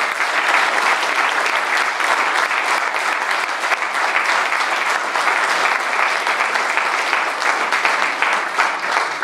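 An audience applauding steadily, with many hands clapping at once.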